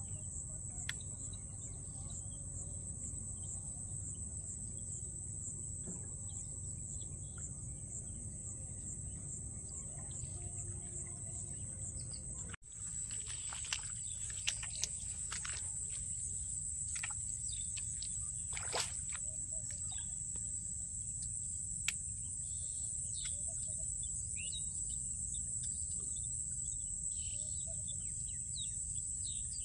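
Steady high-pitched insect chorus, a fine rapid trill, over a low outdoor rumble. After a brief dropout about halfway through, a bird gives several short chirps and there are a few faint clicks.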